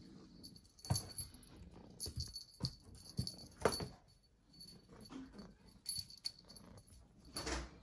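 A Persian kitten batting and biting at a wand toy: irregular knocks and scuffles of paws and toy, with a few faint short vocal sounds from the kitten between them.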